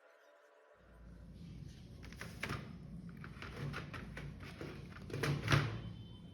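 Handling noise: a run of irregular clicks and knocks over a low rumble, loudest just past five seconds in.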